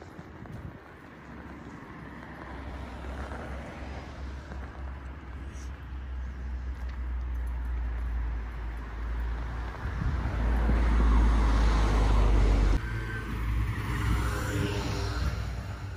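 Road traffic: a car running along the road beside the path, its low rumble and tyre noise growing steadily louder, then dropping off abruptly about thirteen seconds in.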